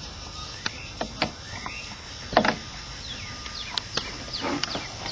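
Scattered metallic clicks and a louder knock about two and a half seconds in, from a socket wrench taking out the bolt on the fuel-filter cover of a 7.3 L diesel engine. Birds chirp faintly in the background.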